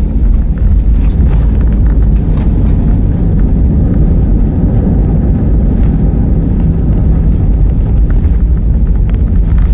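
Passenger airliner's engines and airframe rumbling steadily, a loud low roar with a few faint rattles.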